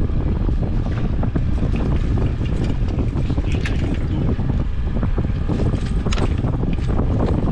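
Wind buffeting the microphone in a steady low rumble, with scattered clicks and knocks as the landing net and rods are handled on deck, a couple of sharper knocks about three and a half and six seconds in.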